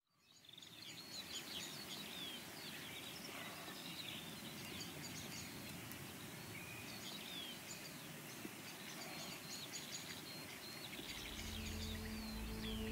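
Many songbirds singing together, a steady mix of short chirps, trills and whistles that fades in at the start. Low, sustained music tones swell in underneath near the end.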